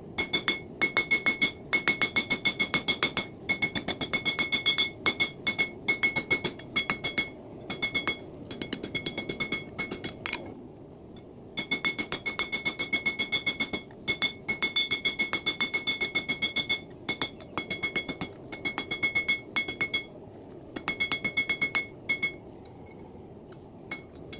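Hand hammer blows on hot coil spring steel over an anvil, in quick runs of about three to four strikes a second with short pauses, each strike making the anvil ring, as the bar is drawn out. A propane forge runs steadily underneath.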